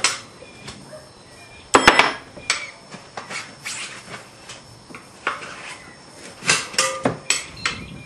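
Steel tyre levers clinking and scraping against a spoked motorcycle wheel's rim as a knobby tyre's bead is worked over it: scattered metallic clinks, the loudest a ringing strike about two seconds in, with a quicker run of clinks later on.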